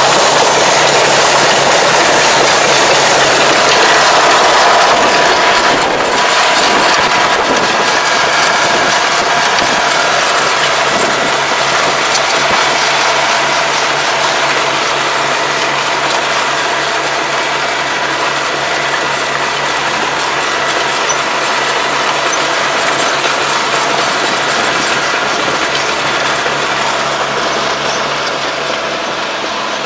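Tractor engine running steadily while it pulls a ridge-forming, plastic-mulch-laying implement through tilled soil, with mechanical clatter from the implement. There is a loud hiss over the first few seconds, and the sound slowly fades toward the end as the tractor moves away.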